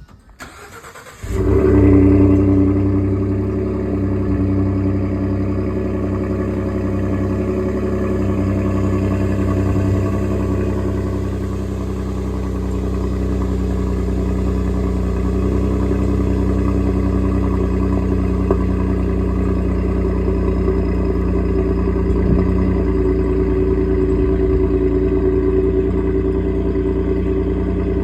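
Ford F-150 EcoBoost twin-turbo V6 starting about a second in, then idling steadily.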